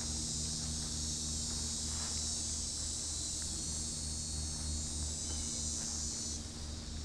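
Steady high-pitched insect chorus that drops off suddenly near the end, over a low steady hum and faint footsteps on grass.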